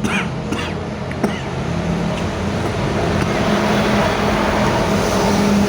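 A vehicle's engine running steadily, with a sharp click about a second in and a hiss that grows slightly louder toward the end.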